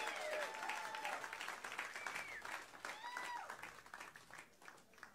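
Theater audience applauding with a few whoops, the clapping thinning out and dying away near the end.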